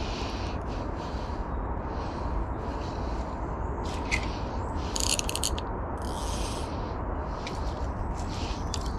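Steady rumble of wind and handling on the microphone, with a few short bursts of scraping and rustling; the loudest is a quick cluster of clicks about five seconds in.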